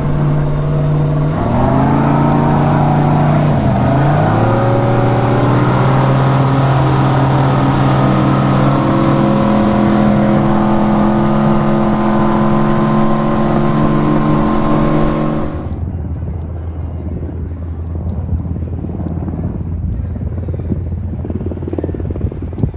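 Campbell boat's engine running under way, its pitch dipping and climbing back as the throttle changes, then holding steady at speed. About 16 seconds in the sound drops suddenly to a quieter, lower steady rumble.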